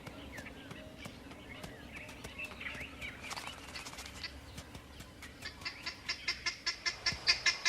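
Wild birds calling: scattered faint chirps, then a rapid run of sharp, repeated calls, several a second, that sets in after about five seconds and grows louder.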